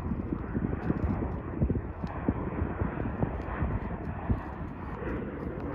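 Southwest Airlines Boeing 737 on final approach, its jet engines a steady rushing noise, with wind buffeting the microphone in irregular low thumps.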